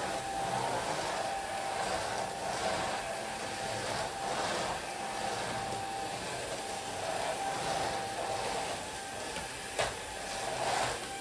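Vacuum cleaner running steadily with a thin whine, its sound swelling and fading every second or two as it is pushed back and forth over a rug. A single sharp click about ten seconds in.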